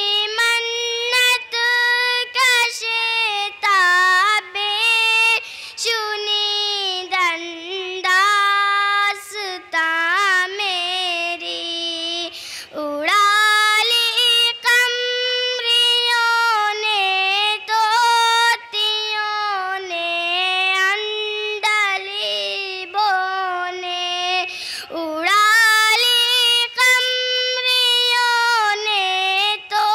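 A young girl singing an Urdu nazm solo and unaccompanied, in high melodic phrases with short breaks between them.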